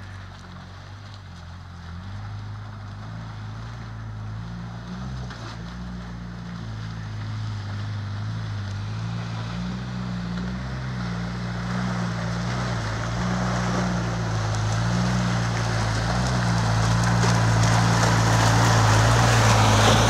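UAZ-452 four-wheel-drive van's engine running at a steady low pitch while the van drives slowly through water and ice, growing steadily louder as it approaches. Water splashing under the wheels builds up toward the end.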